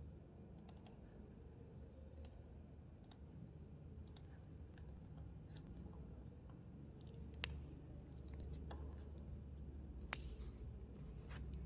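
Computer mouse clicks, a dozen or so single clicks at irregular intervals, over a faint low hum.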